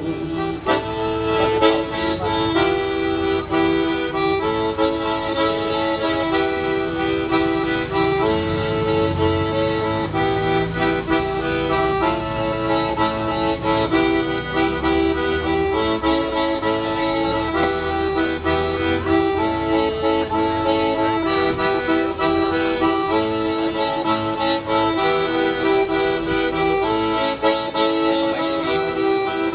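Accordion playing an instrumental tune, its melody moving in held notes over a steady lower accompaniment.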